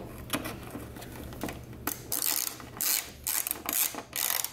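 Hand socket ratchet on an extension clicking in several short runs as it drives a screw home.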